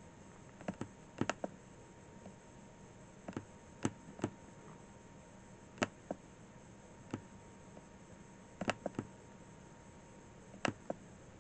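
Computer mouse button clicking: sharp single clicks and quick pairs at irregular intervals of a second or two, over a faint steady electrical hum.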